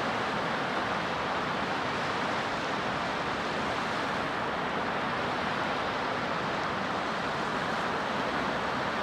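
Sea surf washing on a shore: a steady, even rush of waves.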